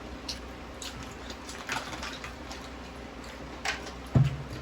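Eating sounds at a meal table: scattered faint clicks and taps, with a short voice sound about four seconds in.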